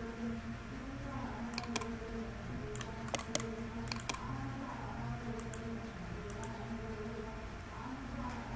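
Scattered clicks of a computer keyboard and mouse, some in quick groups of two or three, over a steady low hum.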